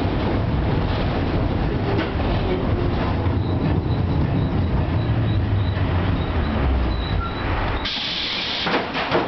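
FVV CSM-4 'Bengáli' articulated tram running, heard from inside the passenger car: a steady rumble of wheels on rails with a faint, broken high whine. Near the end the rumble briefly drops and a short hiss follows, with a couple of clicks.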